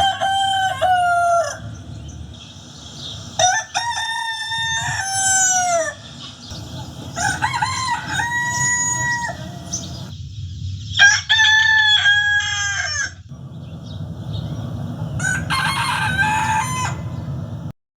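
Rooster crowing five times, each a drawn-out cock-a-doodle-doo a couple of seconds apart, over a steady low background rumble.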